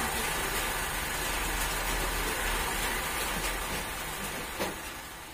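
Astron 18-inch stand fan running after repair, a steady whoosh of air with a low hum, fading steadily away. The fan has new bushings, shaft, spacer and capacitor.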